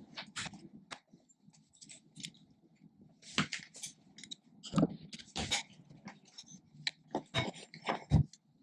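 Scattered clicks and knocks of metal hardware and tools being handled while inline skate frames are unbolted and taken off the boots. The loudest knocks fall about three and a half, five and a half, seven and a half and eight seconds in.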